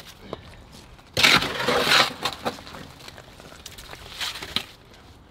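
A shovel scraping into gravel and soil and tipping the load into a post hole around a wooden post: a loud crunching rush of stones about a second in, lasting under a second, then a lighter scrape near the end.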